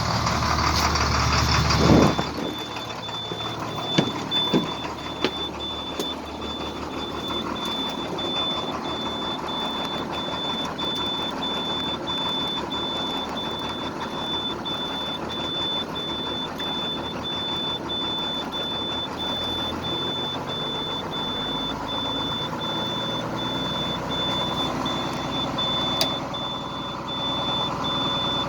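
International DT466E diesel of a school bus, running through a muffler delete. It is loud at first, drops back about two seconds in, then idles steadily with a few light knocks. A rapid high-pitched electronic beeper sounds at an even pace over the engine the whole time.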